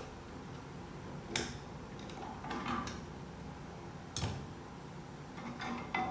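Metal parts of a 09G automatic transmission clinking and knocking as they are handled during disassembly: several sharp clinks and a short clatter, spread out over a few seconds.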